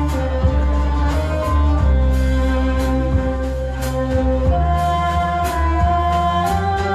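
Live band of violin, oud, electric guitar, keyboard, electric bass and drum kit playing an instrumental Arabic folk tune, the melody in long held notes over a heavy bass line and regular cymbal strokes.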